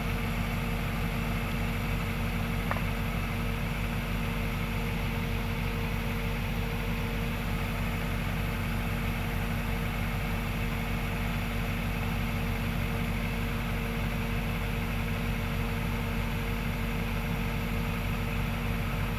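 Kubota DC105X combine harvester's diesel engine running steadily while it unloads rice grain through its auger into a truck: a constant drone with a steady whine over it.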